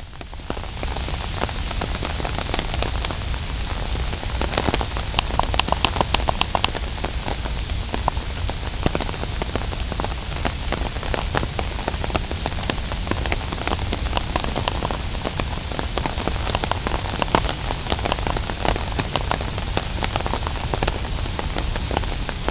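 Steady rain falling, with many individual drops landing close by as sharp ticks; it gets louder about half a second in.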